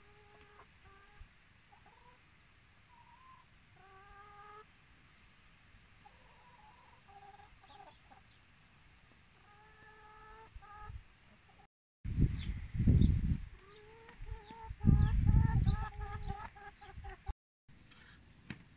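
Several hens clucking and giving short, drawn-out calls on and off. About twelve seconds in, the sound cuts and resumes with louder clucking under two bursts of heavy low rumble on the microphone.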